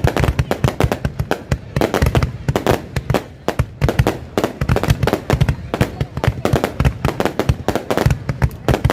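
Fireworks going off in a dense, unbroken string of bangs and crackles, many a second.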